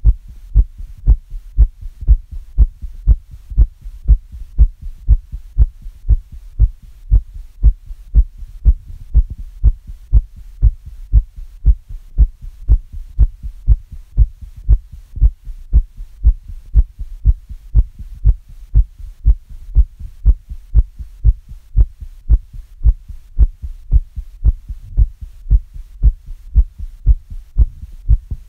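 A person's heartbeat beating fast and steadily: a regular train of deep, dull thuds.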